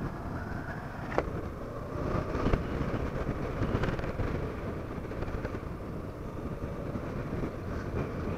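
Honda CB500F's parallel-twin engine running while riding, with wind and road noise; a short knock sounds about a second in.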